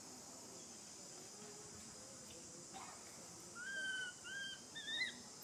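A newborn macaque gives three short, high-pitched cries in quick succession near the end, each an arched call, the last rising in pitch.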